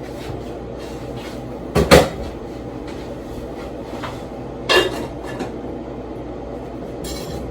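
Household knocks and clatter over a steady background hum: a sharp double knock about two seconds in, another knock near five seconds, and a short rustle near the end.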